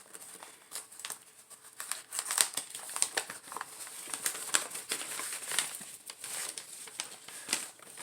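Crinkling and crackling of plant packaging being unwrapped and handled, in irregular quick crackles.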